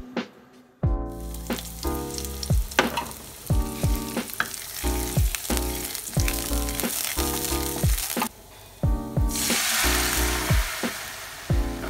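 Sliced garlic sizzling in hot oil in a nonstick wok, stirred with a wooden spatula; the sizzle starts about a second in. Just past nine seconds chicken stock is poured into the hot pan, giving a louder, hissing rush. Background music plays throughout.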